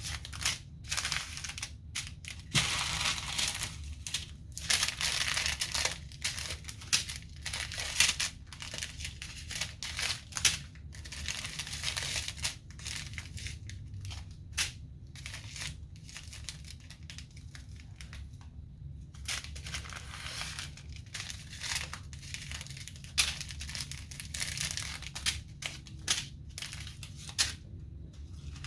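Small plastic bags of diamond-painting drills crinkling and rustling in irregular bursts as they are handled and sorted.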